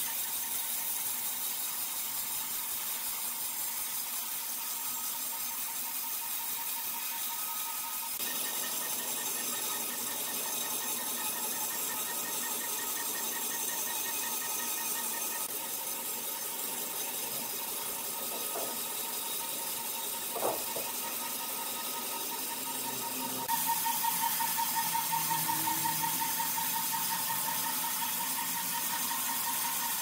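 Sawmill machinery running with a steady high whine and hiss. The sound grows louder about eight seconds in and again near the end, and there is one short sharp sound about twenty seconds in.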